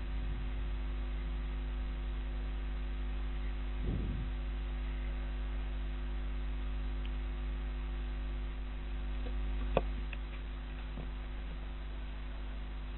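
Steady electrical mains hum, with a soft low thump about four seconds in and a sharp click near ten seconds.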